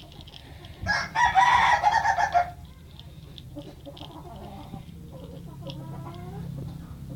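A rooster crowing once, loudly, for about a second and a half starting about a second in.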